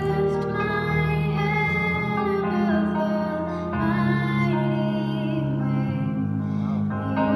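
A young girl singing a slow worship song into a microphone over an instrumental accompaniment of sustained low chords.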